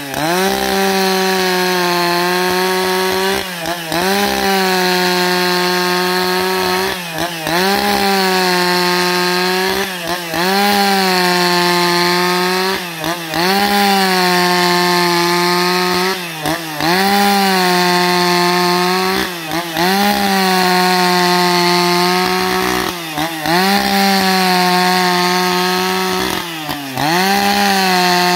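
Husqvarna 281 XP two-stroke chainsaw running at full throttle, ripping lengthwise along a log to cut planks. The engine note dips briefly and recovers about every three seconds.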